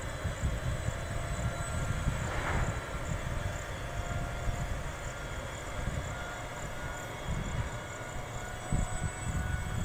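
Indian Railways WAG-12 twin-section electric freight locomotive running, heard as an uneven low rumble with faint steady whining tones above it.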